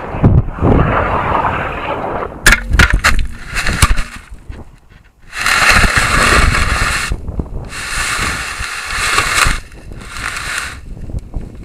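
Rocket-mounted camera coming down and hitting the ground: rushing wind noise over the microphone, then a cluster of sharp knocks about two and a half seconds in as the fiberglass rocket lands and tips over. Three stretches of harsh hissing noise follow, each starting and stopping suddenly.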